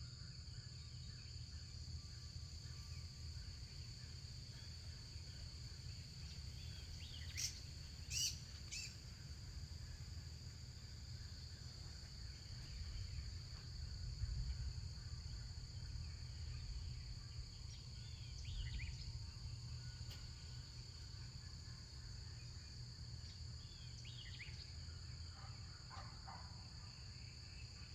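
Birds calling outside in short falling notes, a few of them loudest about eight seconds in, over a steady high drone of insects and a low rumble.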